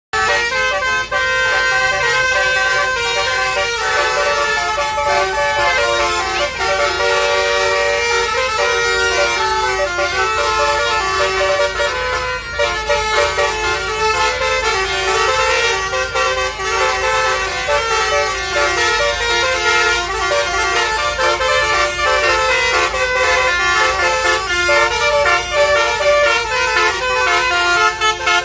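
Bus basuri telolet horn, a multi-trumpet roof-mounted air horn, playing a tune of shifting horn tones without a break.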